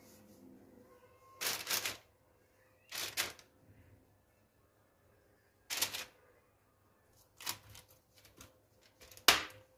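Parchment baking paper rustling and crinkling in several short bursts as hands work on a lined baking tray, laying butter slices and grated apple onto the paper. The last burst, about half a second before the end, is the loudest.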